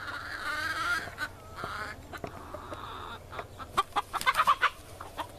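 Chickens clucking, with a wavering squawk in the first second, as an older rooster chases a younger rooster off. About three and a half seconds in comes a quick run of sharp scuffling noises, the loudest sound here.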